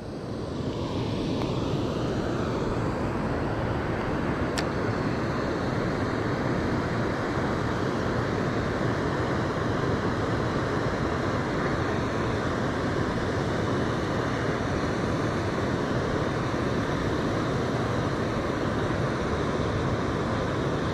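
Steady rushing of water pouring over a concrete spillway weir, an even roar without a break.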